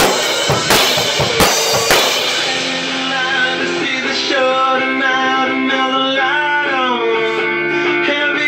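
A drum kit played with sticks, with a few last hits on drums and cymbals in the first two seconds, then the drumming stops and pitched music, guitar-like with bending notes, carries on alone.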